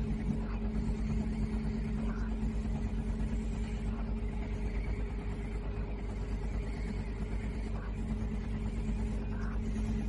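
Steady electric hum of a running VelaShape body-contouring machine, a motor or pump drone with two held tones over a low rumble and faint soft pulses every couple of seconds.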